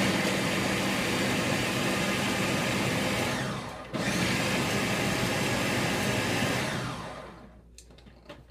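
Ninja countertop blender running loud as it blends a smoothie of fruit, ice and water. It runs in two bursts with a brief drop about three and a half seconds in, then winds down near the end.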